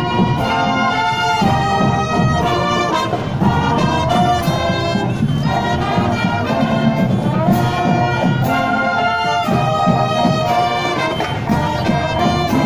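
Marching band brass playing a tune in held, changing notes.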